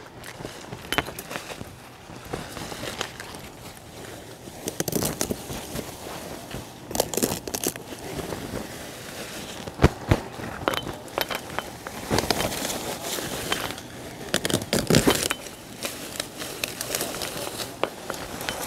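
Large cardoon leaves and stalks rustling and crackling as stalks are cut and pulled from the plant, in irregular bursts, with a sharp snap about halfway through.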